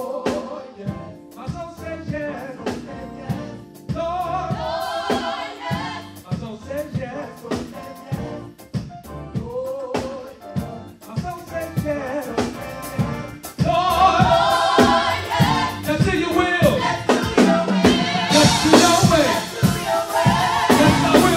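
Live gospel group singing, a lead singer with backing vocalists, over keyboard and drum kit with a steady beat. About two-thirds of the way in the voices swell fuller and louder.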